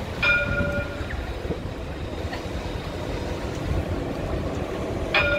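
Luas tram's warning bell ringing twice, a sudden clear ding just after the start and another near the end, each dying away within about half a second. Under it runs the steady low rumble of the approaching tram and the street.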